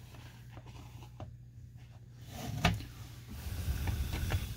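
Quiet handling of small carburetor parts and a screwdriver over a bowl, with one sharp click about two and a half seconds in and soft rubbing noises after it.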